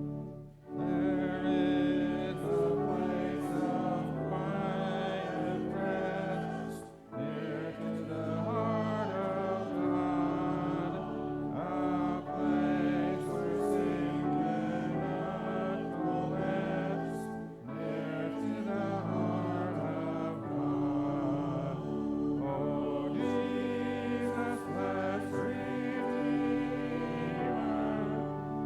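A hymn sung by a congregation with instrumental accompaniment, in sustained phrases with brief breaths between them about a second, seven seconds and seventeen seconds in.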